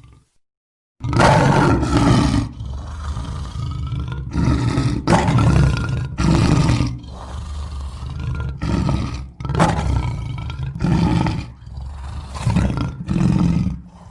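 Lion roaring in a long series of loud, deep roars, one after another. The series starts about a second in and cuts off suddenly at the end.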